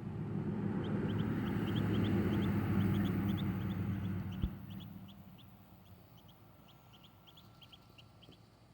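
A Muscovy duckling gives short high peeps, repeated many times. Over the first five seconds a louder low hum with a rushing noise swells and fades, ending with one sharp click.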